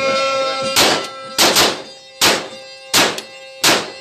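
Handgun fired six times into the air: sharp cracks at uneven intervals, two of them in quick succession about a second and a half in.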